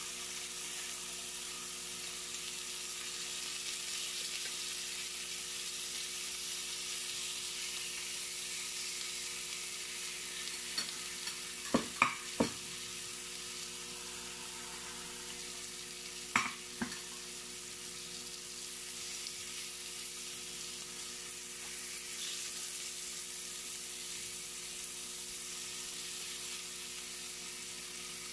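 Thin marinated meat slices sizzling steadily on a ridged electric grill plate. Twice, about midway, a metal fork clinks sharply a few times against the grill or a plate.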